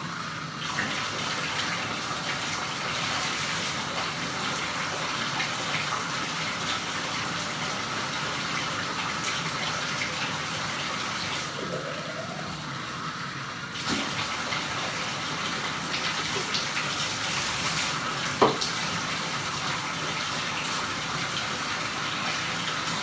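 Water running from the bathtub tap into the tub during a dog's bath, a steady rush. A single sharp knock sounds about three quarters of the way through.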